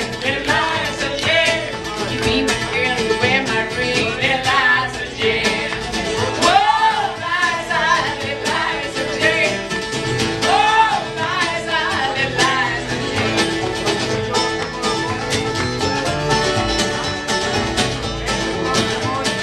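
Live bluegrass band playing: strummed acoustic guitar, picked banjo and upright bass behind a sung vocal line. The singing stops about two-thirds of the way through and the instruments play on.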